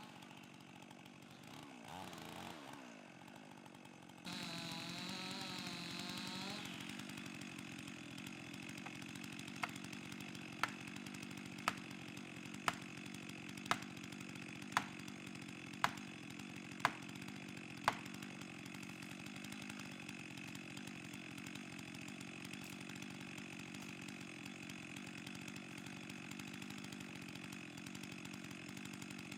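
Chainsaw running steadily, louder and wavering in pitch for a couple of seconds after about four seconds in. Partway through, nine sharp knocks come evenly about a second apart.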